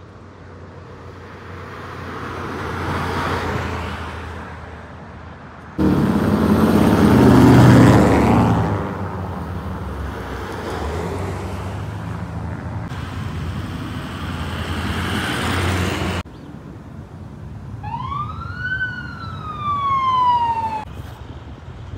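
Traffic passing on a road: a vehicle goes by, then a GMC box truck passes close with loud engine and tyre noise. Near the end, a siren on a red emergency pickup gives one wail, rising quickly and then falling slowly.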